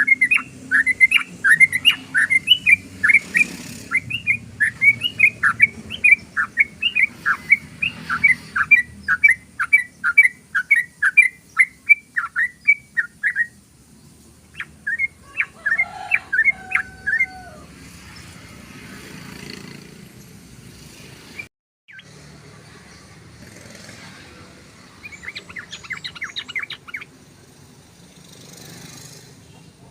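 Yellow-vented bulbul (trucukan) singing its rapid 'ropel' run: a long string of sharp, quickly repeated chattering notes lasting about thirteen seconds. This is followed by a shorter burst with a few lower notes, and a softer burst near the end.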